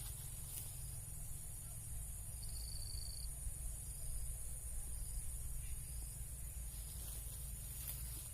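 Faint outdoor background of a steady high insect drone over a low wind rumble. A short, high, even tone sounds about two and a half seconds in.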